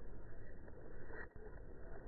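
Rainwater trickling and dripping down a rain chain of small metal cups, a steady watery patter.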